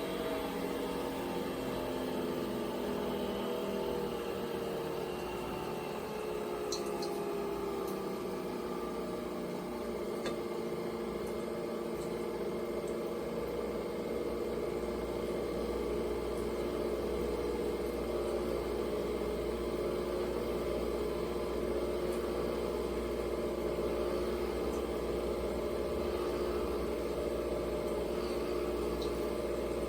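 Nespresso Vertuo Next capsule coffee machine running a cycle: a steady motor whir with a pitched hum. The hum glides down in pitch over the first few seconds, then holds steady.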